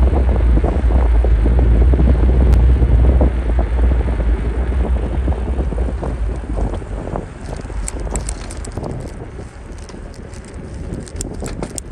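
Wind buffeting the microphone of a camera on a moving bicycle, a heavy low rumble that eases off about halfway through. Scattered light clicks and rattles from the bike come through in the second half.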